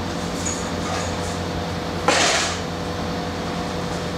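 Steady electrical or air-conditioning hum of room tone, with one brief breathy hiss about two seconds in.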